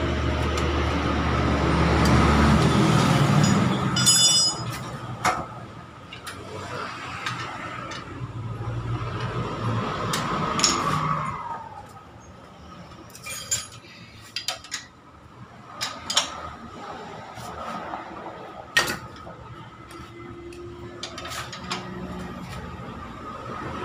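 Metal tools and parts clinking and knocking now and then, with one bright metallic ring about four seconds in, as a Honda TMX 125 Alpha engine is bolted back into its frame by hand.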